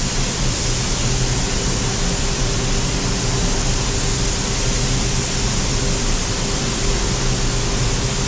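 Compressed-air paint spray gun hissing steadily without a break as it lays clear coat onto a spoiler, over a steady low hum.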